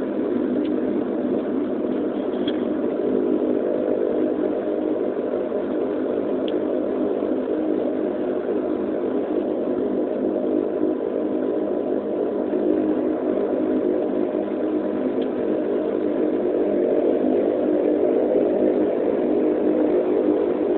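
Dash 8 turboprop engines and propellers running, heard from inside the passenger cabin as the aircraft rolls along on the ground, a steady drone that grows slightly louder near the end.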